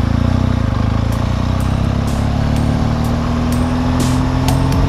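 Motorcycle engine pulling away from a standstill in low gear, its note rising gently as the bike gathers speed, with a few short sharp clicks over it.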